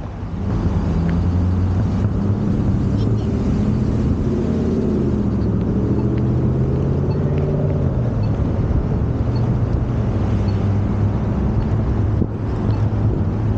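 Electric beach wagon's drive motor running under way, a steady low hum that slides up and down in pitch a few seconds in.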